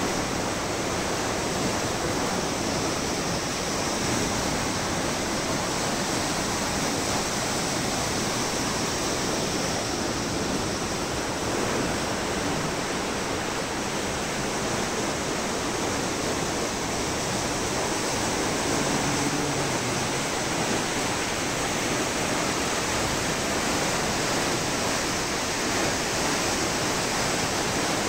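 Steady rush of river water spilling over a low weir and churning through the basins of a stepped concrete fish ladder.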